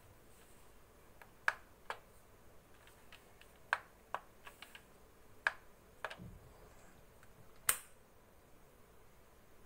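Sharp clicks and taps at irregular intervals: about seven loud ones, the last and loudest near the end, with fainter ticks in between.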